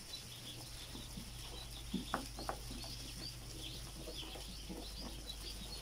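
A brooder full of ducklings peeping, many small high chirps overlapping throughout, over a low steady hum. Two or three short knocks come about two seconds in.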